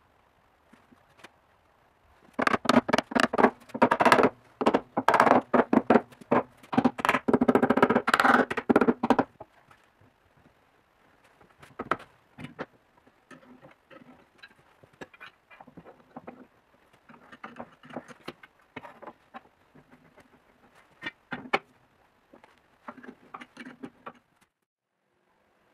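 Hardwood shelf parts knocking, rattling and scraping against each other as they are fitted together. A dense run of rapid clicks and rattles lasts about seven seconds, then lighter scattered knocks and scrapes follow.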